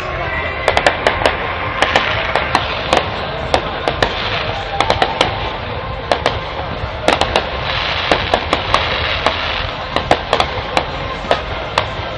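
Fireworks crackling: dozens of sharp, irregular cracks and pops that come in quick clusters throughout, over a steady background hiss and rumble.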